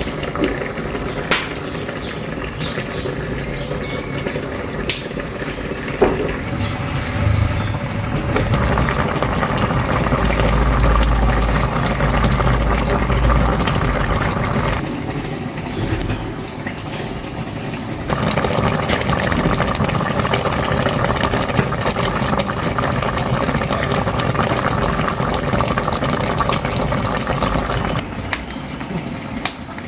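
Pot of chicken with okra boiling hard, a dense steady bubbling with scattered pops. A low rumble joins in for a few seconds about a third of the way through.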